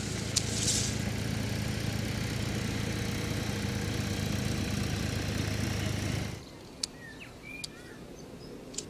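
Farm tractor's diesel engine running steadily, cutting off abruptly about six seconds in. Afterwards a few sharp clicks of secateurs snipping grape bunches off the vine.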